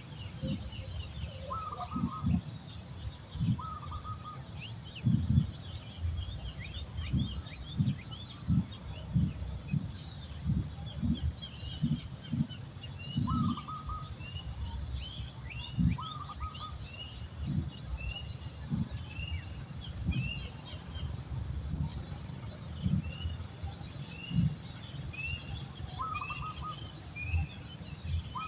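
Outdoor nature ambience: a steady, high insect drone with many short bird chirps and a few lower calls. Irregular low thuds come several times a second and are the loudest events.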